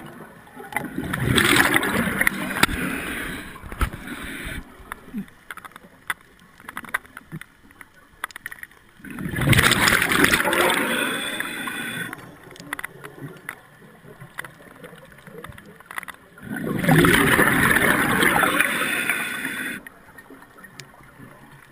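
Underwater scuba breathing through a regulator: three long bursts of exhaled bubbles about seven seconds apart, with quieter stretches and small clicks in between.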